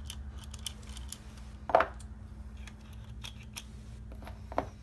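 Small metal clicks and rattles of a Weslock knob keylock being turned by hand and its locking tested. Two louder clicks stand out, one a little under two seconds in and one near the end.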